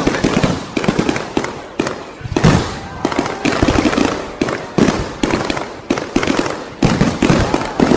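Fireworks going off: a quick series of sharp bangs, roughly one a second, each with a short echoing tail, and crackling in between.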